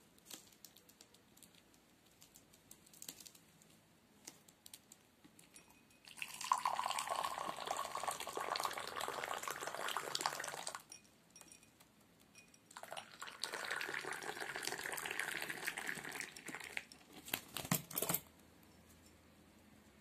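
Tea poured from a metal teapot into a glass: two long splashing pours with a short pause between them, then a few clinks near the end.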